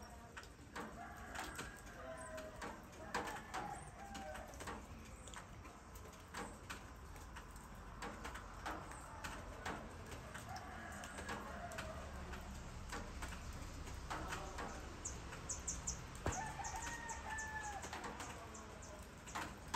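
Roosters crowing now and then, with a long crow about three quarters of the way through, over scattered short ticks and a brief burst of small-bird chirps.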